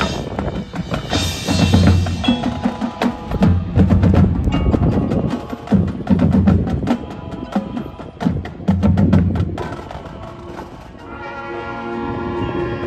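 Marching band percussion passage: many sharp clicks and drum hits with heavy low booms in several clusters. About eleven seconds in, sustained band chords come in under the percussion.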